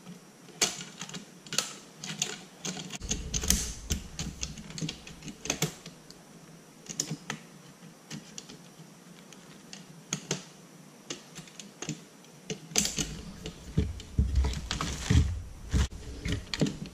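Irregular clicks and knocks of plastic rod-holder tubes and aluminium frame pieces being handled and fitted together by hand. Duller low bumps come a few seconds in and again near the end.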